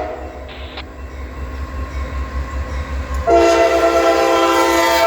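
Raised-letter Nathan K5LA horn on a GE CM44AH diesel locomotive sounding for a grade crossing. A blast cuts off right at the start, then a long, loud blast comes about three seconds in and is held for about two seconds, over the low rumble of the approaching train.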